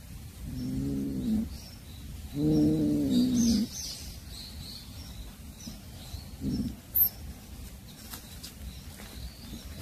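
A tabby cat's low, drawn-out growling calls while it guards a caught mouse: two of about a second each, then a short third a few seconds later. Faint bird chirps sound behind it, and there is a sharp click about seven seconds in.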